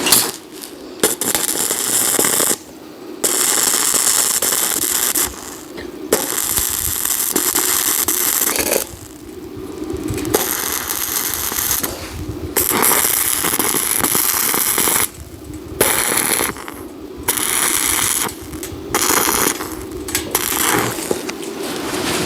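Electric arc welding in short runs: a crackling, sizzling hiss that starts and cuts off abruptly about eight times, each burst lasting one to three seconds.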